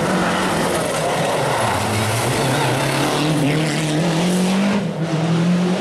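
Rally car engine at high revs: the pitch drops about two seconds in, climbs steadily again under acceleration, then briefly dips near the end, as at a gear change.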